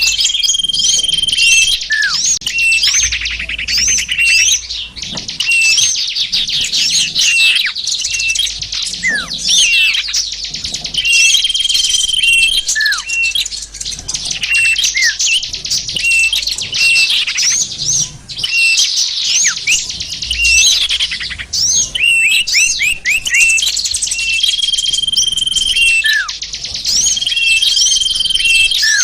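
Dense, unbroken chorus of many small songbirds chirping and calling over one another, with short level whistles and quick downward-sliding notes; a bird-lure recording (suara pikat) used to draw in small wild birds.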